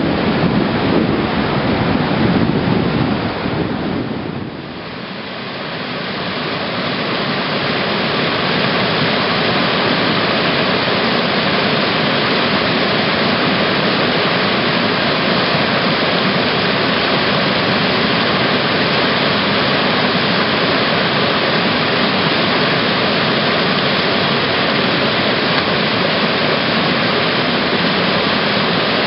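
Steady rush of whitewater from a large rapid wave. It is fuller and deeper for the first four seconds, dips briefly about five seconds in, then settles into an even rushing.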